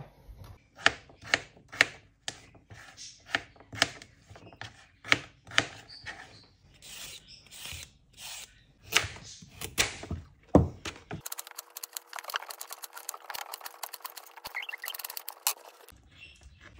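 Carrot being peeled and cut on a plastic cutting board: a vegetable peeler scraping and a knife knocking on the board in irregular sharp knocks. About eleven seconds in it changes to a thinner stretch of fast, close-together chopping clicks over a faint steady hum.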